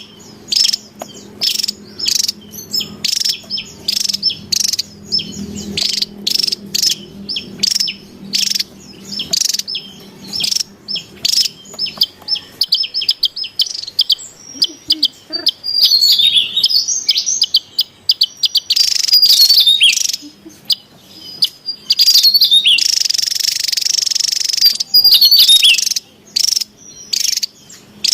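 Javan tesia calling excitedly: rapid runs of short, sharp, high-pitched chirps, some sliding downward, with a harsher, denser stretch of chatter about two-thirds of the way through.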